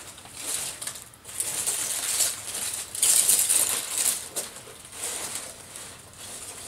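Packing material rustling and crackling while a parcel is unpacked by hand, with light rattles and clinks, loudest about halfway through.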